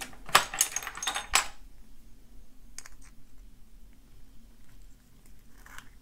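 Small metal parts of a brass key-in-knob lock cylinder clicking and clinking as it is handled with its key: a quick flurry of clicks in the first second and a half, then a few faint ticks.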